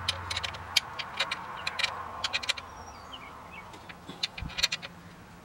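Scattered light clicks and taps of metal and rubber as a drive belt is worked by hand onto the front pulleys of a Ford 302 V8, coming in irregular little clusters.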